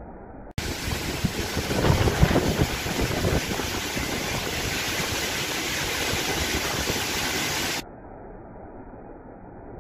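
A violent rainstorm: heavy rain and strong wind make a steady rushing noise, with gusts buffeting the microphone in the first few seconds. About half a second in, the rush turns suddenly louder and brighter, and it drops back to a duller, quieter rush a couple of seconds before the end.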